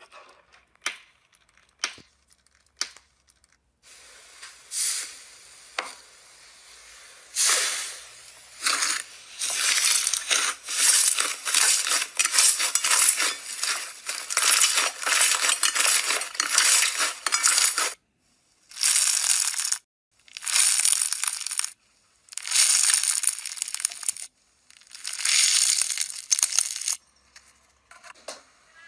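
Slime being squeezed, kneaded and stretched by hand, crackling and popping in bursts of many quick clicks. The bursts last from one to several seconds and are separated by short gaps, with only a few single clicks in the first seconds.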